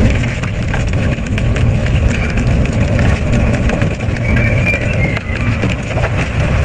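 Double-shaft shredder running empty: its toothed cutter rotors turn with a steady heavy rumble, scattered light clicks, and a faint high squeal about halfway through.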